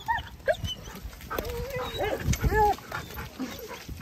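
Dogs giving a string of short, high yips and whines, loudest a little past halfway.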